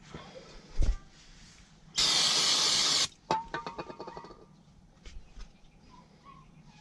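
A one-second hissing blast from an aerosol can of brake parts cleaner sprayed at a brake caliper slide pin and its bore, preceded by a single knock and followed by a quick rattle of small clicks as parts are handled.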